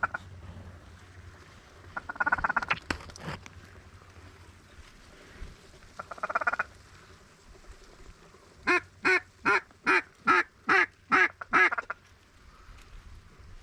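Mallard duck call blown by a hunter to circling mallards: a few raspy hen quacks, then a run of eight quacks about two and a half a second, the loudest sound here.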